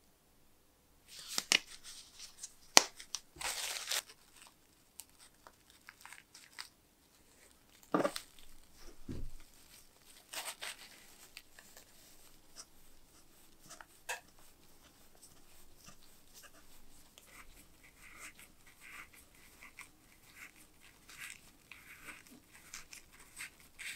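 A few sharp clicks and handling knocks, then a crumpled paper towel crinkling and rubbing as polishing compound is worked into a bakelite eyepiece ring, a faint scrubbing that runs on through the second half.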